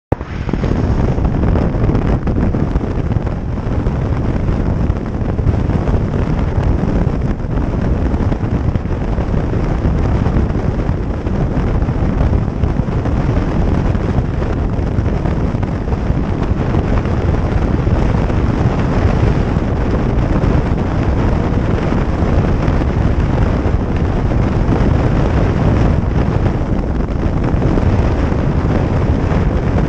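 Steady, heavy wind rush on the microphone of a motorcycle riding at speed, mixed with the bike's engine and road noise.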